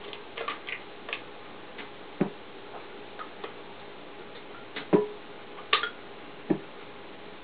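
Rubber spatula scraping and tapping inside a blender jar while emptying thick batter, heard as irregular clicks and knocks, the loudest about five seconds in.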